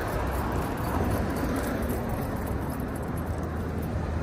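Steady noise of car traffic going by on the street, with a low rumble.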